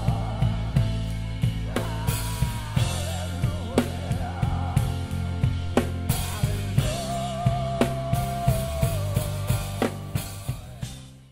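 Live band music with a drum kit keeping a steady beat of kick, snare and cymbal hits over bass and a melody line, with one held note a little past the middle. The music fades out near the end.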